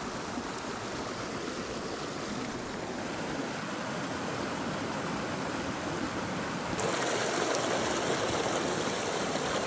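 Fast, shallow mountain stream rushing over rocks, a steady noise of running water that gets a little louder about seven seconds in.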